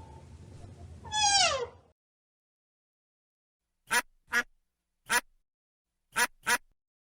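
One drawn-out animal call that falls in pitch, then after a short silence a run of short, clipped duck quacks, five in about three seconds.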